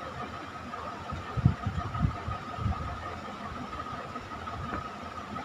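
Soft handling noises as hands work the yarn strip and a crochet hook against the table: a few dull low thumps in the first half. A steady high-pitched hum runs underneath throughout.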